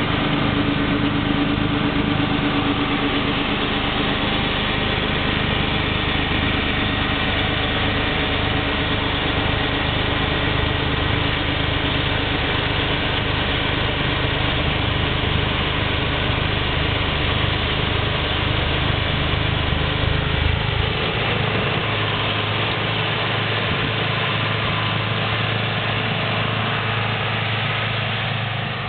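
John Deere 4450 tractor's six-cylinder diesel engine running steadily while working a Red Devil snowblower. The deep low rumble drops away about two-thirds of the way through while the engine keeps running.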